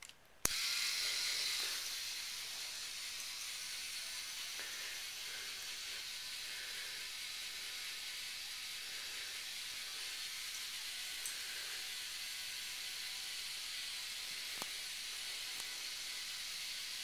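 A click as a K'nex battery motor is switched on, then the motor and its chain lift running steadily with an even high whir, with a few faint ticks later on.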